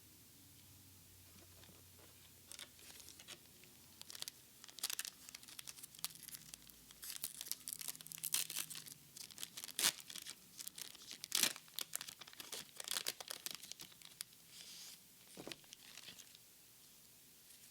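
Foil wrapper of a Pokémon card booster pack being torn open and crinkled by hand: irregular crackling and tearing rustles, starting a couple of seconds in and dying away near the end.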